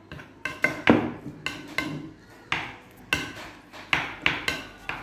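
Spoons clinking and knocking against dishes while people eat: about a dozen sharp, irregular clinks, each with a short ring.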